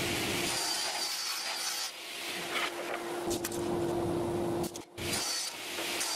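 Ascent table saw ripping sheets of 18 mm pine plywood: dense cutting noise over the steady hum of the saw. The sound cuts out briefly about five seconds in.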